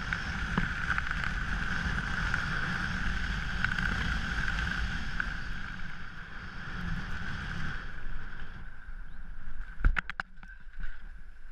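Wind rushing over a skydiver's camera microphone during the canopy descent, dropping away about eight seconds in. A few sharp knocks follow near the end, as he reaches the ground beside a parked car.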